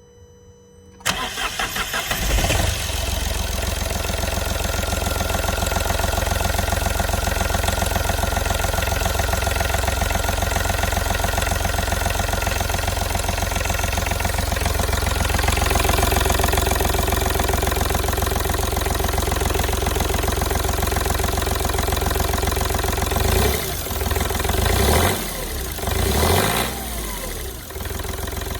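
Smart fortwo 451 CDI's 0.8-litre three-cylinder OM660 diesel cold-starting about a second in, then idling steadily, with a few short revs near the end. It idles without hydraulic lifter clatter, which the owner credits to an engine flush.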